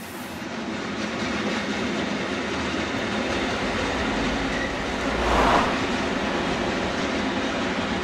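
Train running on rails, a steady rumble of wheels on track that fades in at the start and swells louder about five seconds in.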